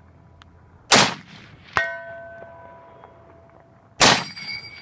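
Two M1 Garand rifle shots about three seconds apart. Under a second after the first, a distant steel target rings from the hit; the second shot goes low.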